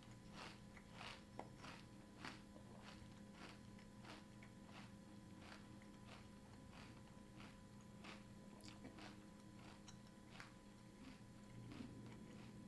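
Close-up chewing of a mouthful of crunchy cereal in milk (Post Great Grains Crunchy Pecan: flakes, clusters and pecan pieces): a steady run of soft crunches about three a second, growing fainter near the end.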